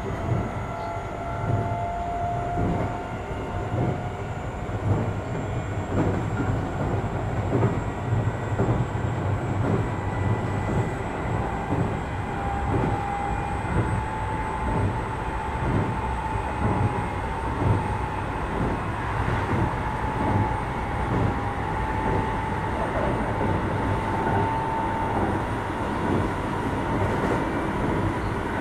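Keio 8000 series electric train running at speed, heard from inside the car: a steady low rumble with wheels knocking over rail joints, and a thin whine from the Hitachi SiC inverter and traction motors that climbs slowly in pitch as the train gathers speed.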